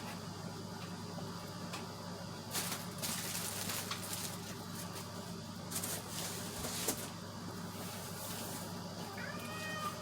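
A few brief bursts of rustling and handling noise, the longest about three seconds in, over a steady low hum.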